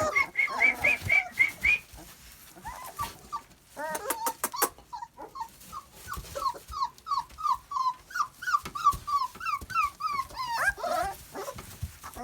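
Two- and three-week-old Cane Corso puppies whimpering and squeaking in quick runs of short, high calls, several a second. A few sharp clicks come about four seconds in.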